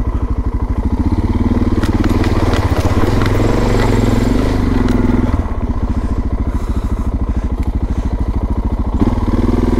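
Suzuki DR650's single-cylinder four-stroke engine running as the bike is ridden, its firing pulses plain. It gets louder from about a second in, drops back about five seconds in, and rises again near the end, with a few clicks and knocks around two to four seconds in.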